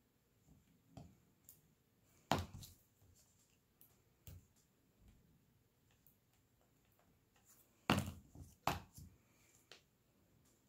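Quiet, scattered clicks and taps of diamond painting: small resin drills picked up from a plastic tray with a drill pen and tweezers and pressed onto the adhesive canvas. Two louder knocks with a quick patter after them, about two seconds in and again near eight seconds.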